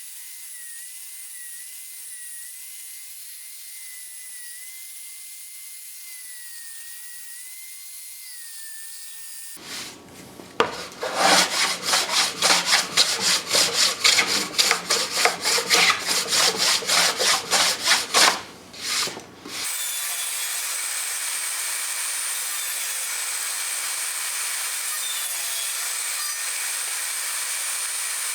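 Hand saw cutting through wood, with quick, even back-and-forth strokes, about three or four a second, for roughly nine seconds in the middle. A steady hiss comes before and after it.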